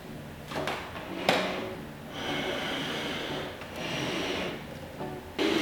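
Two sharp knocks, then two stretches of scraping, sliding noise as objects are handled. Background music starts just before the end.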